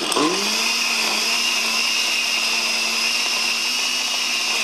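Countertop blender with a glass jar starting up and blending ice cubes into a chocolate and cream drink. The motor's pitch rises quickly in the first half second as it spins up, then it runs at a steady whir.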